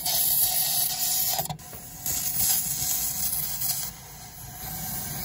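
Hand-held gas torch hissing while brazing a car's exhaust tip. The hiss swells twice and then settles lower, with one sharp click about a second and a half in.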